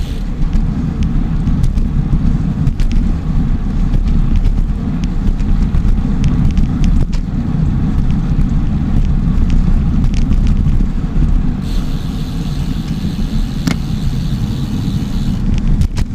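Wind and road rumble from a bicycle ride, with scattered light clicks throughout. A higher hiss joins in for a few seconds past the middle.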